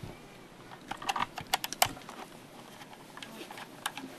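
Small screwdriver prying at the plastic case of an XO laptop, giving a quick run of light plastic clicks and ticks about a second in, with a few more near the end.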